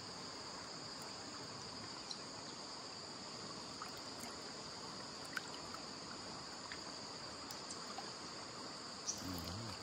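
Mountain stream flowing steadily, with insects keeping up a steady high-pitched drone over it and a few faint ticks.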